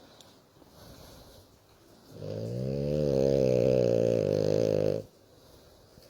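A sleeping French bulldog snoring: about two seconds in comes one loud snore lasting nearly three seconds, its pitch rising and then falling before it stops abruptly, with only faint breathing around it.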